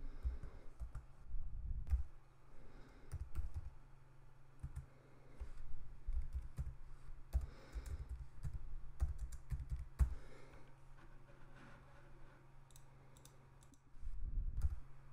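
Typing on a computer keyboard: irregular, quiet key clicks in short runs, over a faint steady low hum.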